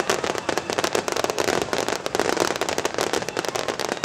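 Fireworks going off in a dense, rapid crackle, many small pops and bangs a second.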